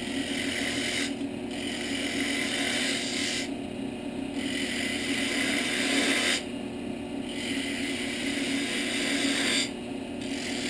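Wood lathe running with a steady hum while a hand-held gouge cuts the spinning wood. The cutting scrape comes in about five passes of roughly two seconds each, with short pauses between.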